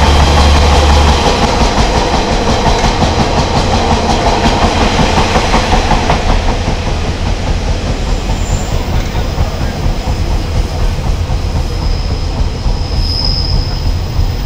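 Class 143 Pacer diesel railbus running along the track, a dense rumble of wheels and engine. A low hum drops away about a second in, the running noise grows quieter from about six seconds in, and a faint high squeal sounds near the end.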